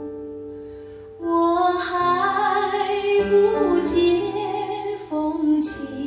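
Instrumental passage of a Mandarin pop ballad played through a hi-fi amplifier and floor-standing speakers. A held chord fades for about a second, then a louder melody line with vibrato comes in over sustained accompaniment.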